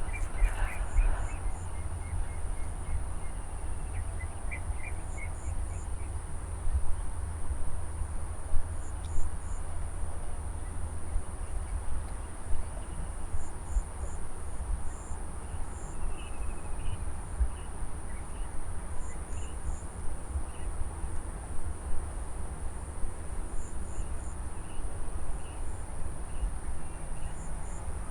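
Field ambience: a steady high insect trill with a low rumble of wind on the microphone, and a few short bird chirps now and then.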